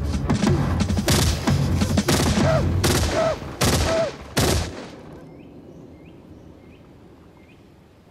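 Submachine gun firing rapid bursts, several loud volleys in a row, stopping suddenly about four and a half seconds in. A bird then chirps faintly a few times.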